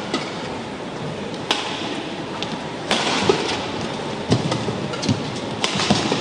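Badminton rackets striking a shuttlecock in a fast doubles rally: a string of sharp, crisp hits roughly one to two a second, over the steady noise of the hall.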